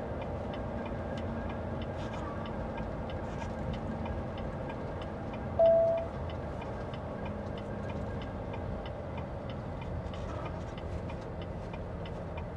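Truck's turn-signal indicator clicking at a steady, regular pace in the cab, over the low hum of the running engine. One short, high beep sounds about halfway through.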